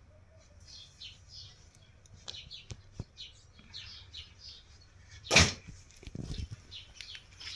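Small birds chirping in short, high, repeated calls, with one loud, sharp sound a little over five seconds in.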